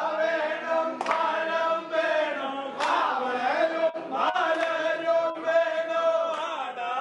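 A group of voices chanting together in unison, holding long notes between gliding phrases, with a few sharp shouted accents.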